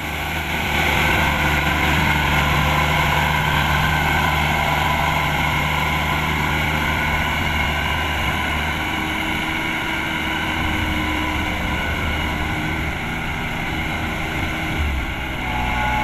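Kubota DC-105X rice combine harvester running steadily at working speed: a diesel engine note with a high mechanical whine over it. The low engine note shifts briefly about a second before the end.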